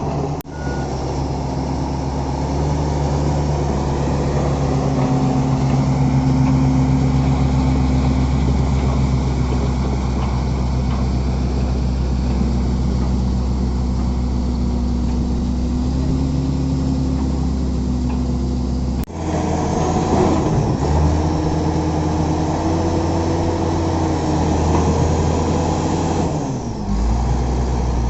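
Shantui SD20-5 bulldozer's diesel engine running steadily, breaking off sharply twice, once just after the start and once about two-thirds through; its note dips briefly near the end.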